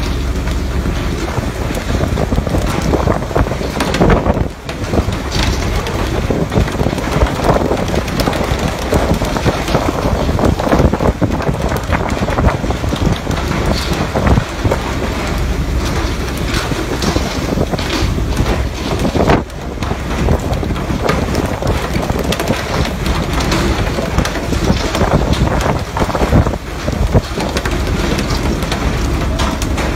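Steady rush of wind and spraying water at sea aboard a pole-and-line fishing boat, with wind buffeting the microphone; the water hiss comes from the sprays jetting along the hull. The noise dips briefly a few times.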